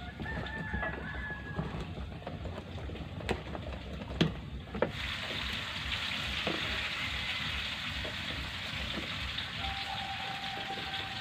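Rooster crowing, one drawn-out call near the start and another near the end, with a few sharp knocks in between. A steady hiss sets in suddenly about five seconds in.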